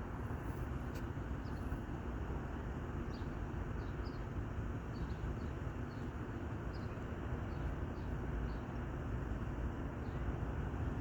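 Steady low outdoor rumble of distant traffic, with small bird chirps scattered throughout.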